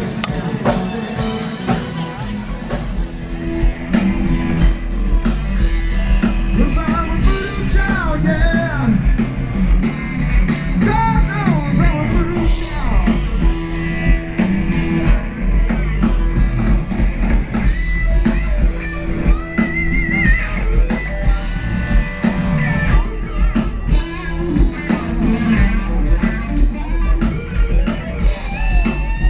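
A rock band playing: a singer over electric guitar, bass and drums, with a steady beat and a heavy bass line.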